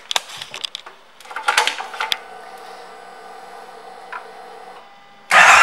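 Switch clicks as the Kawasaki Vulcan 1700 Voyager's ignition is turned on, then a steady electrical hum for a few seconds that cuts off. Near the end the starter engages and the 1700 cc V-twin fires.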